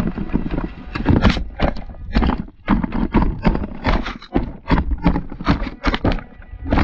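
Small robot rover with a clear plastic box body tumbling and rolling down a steep dirt slope, heard on its own onboard camera: irregular knocks and clattering thuds, about two a second, with a low rumble as it hits the ground.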